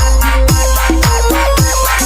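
Loud electronic background music with a heavy, deep bass and a bass note that slides downward about twice a second over a steady beat.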